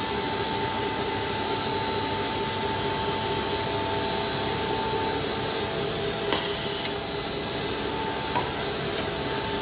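Steady running of plastic pellet drying and blending machinery, a vacuum loader and weigh-scale blender, with a steady whine over the machine noise. About six seconds in, a sharp hiss lasts about half a second, and a faint click comes near the end.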